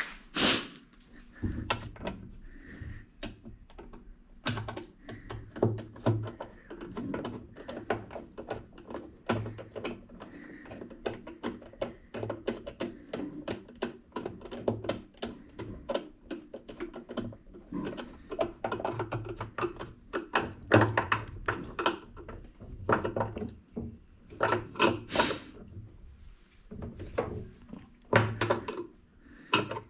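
Irregular knocks, taps and clatter of hard washing-machine parts being handled and fitted by hand, with a few heavier thunks.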